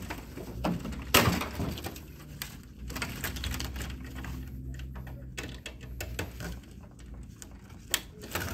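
A laser printer's plastic cover panel and cables being handled against its metal frame: scattered clicks and knocks of plastic, the loudest about a second in.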